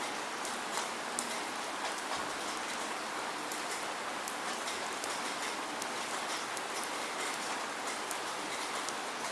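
Steady rain with no thunder, a constant hiss with many individual drops ticking sharply on a surface throughout.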